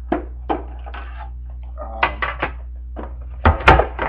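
Trading-card tins and cards being handled: a series of sharp clicks and knocks, the loudest a knock with a thud a little before the end.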